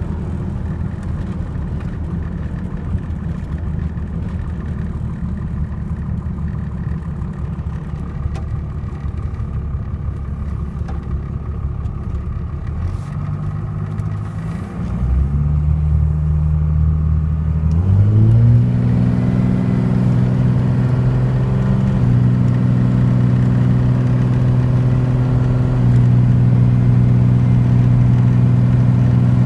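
1995 Cummins 12-valve inline-six turbo diesel heard from inside the cab while driving: a rough, even low rumble at first, then about halfway through the engine note steps up twice and holds steady and louder.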